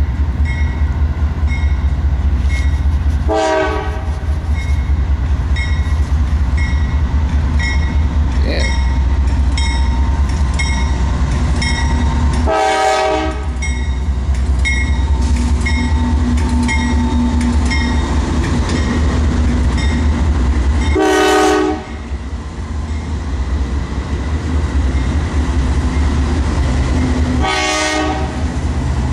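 Freight train led by Norfolk Southern and BNSF diesel locomotives passing a grade crossing, with a steady deep engine rumble throughout. The crossing bell rings a little faster than once a second until about three quarters of the way through, and the horn gives four short blasts spaced several seconds apart.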